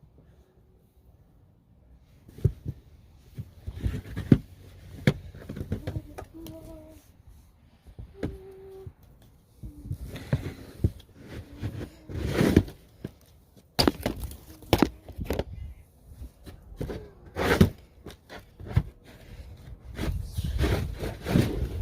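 Irregular thuds and knocks, with a few brief, faint voice sounds.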